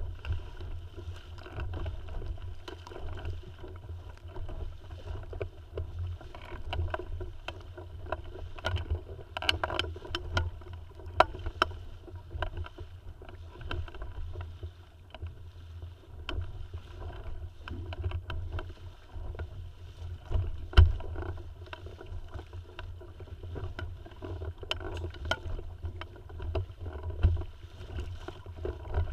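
Tiwal 3 inflatable sailing dinghy under way: water splashing and slapping against the hull over a steady low rumble, with scattered sharp knocks and clicks, the loudest about 11 and 21 seconds in.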